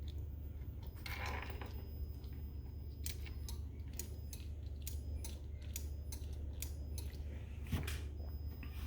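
A run of light, sharp clicks, about two or three a second, over a steady low hum, with one louder knock near the end.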